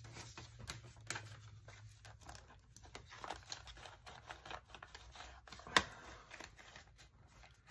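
Paper banknotes rustling and crinkling as they are handled, folded and slid into a cash envelope in a budget binder, with small ticks and one sharper snap about six seconds in.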